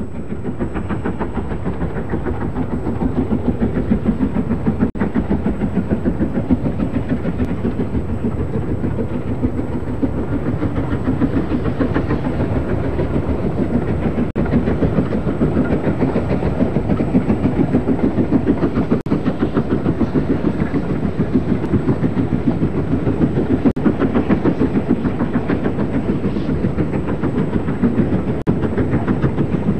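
Stanier Duchess class four-cylinder Pacific steam locomotive working a train, its exhaust beating in a fast, even rhythm over the rumble and clatter of the train on the rails.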